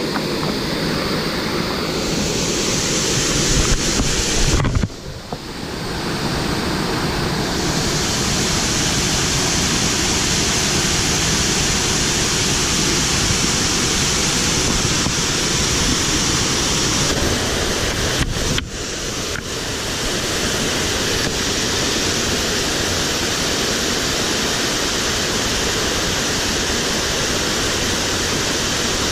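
Mountain stream rushing over rocks and a small cascade close by, a steady loud rush of water that drops away briefly twice, once about five seconds in and again past eighteen seconds.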